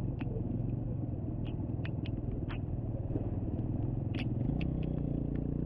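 Motorcycle engines idling with a steady low hum in rain, with scattered light ticks over it. The hum shifts about four and a half seconds in, as the motorcycle alongside pulls away.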